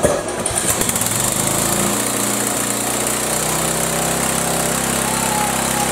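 Single-cylinder Briggs & Stratton riding-mower engine starting and revving up over about two seconds, then running steadily at high speed, wide open. It won't throttle down because the carburettor's throttle plate has come off.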